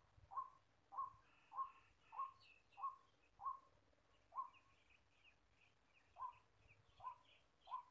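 White-breasted waterhen calling: a short, low note about 1 kHz repeated monotonously at roughly one to two per second, about ten notes, with a pause of about two seconds in the middle. This is the call used to lure waterhens into a trap. Fainter, higher chirping of small birds runs alongside.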